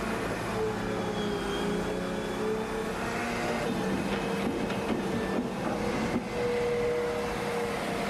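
Excavator engine running steadily while digging, a continuous mechanical drone whose tones bend up and down in pitch partway through.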